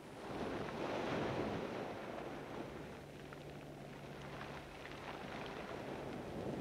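Sea waves washing onto a pebble beach, a steady surf noise that swells up at the start and then settles.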